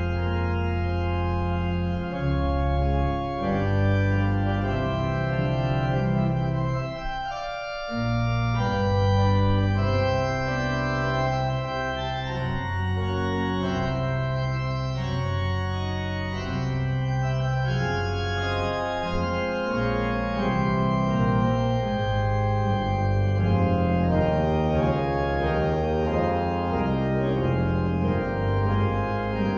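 Organ playing slow, sustained chords over held bass notes, with a brief break between phrases about seven and a half seconds in.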